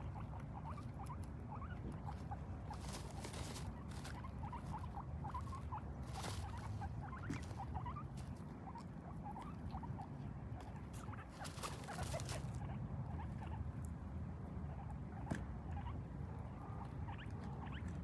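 Guinea pigs chutting: many short, soft calls in quick succession, the sound of content, happy guinea pigs. A few brief rustling noises come in among them, over a steady low hum.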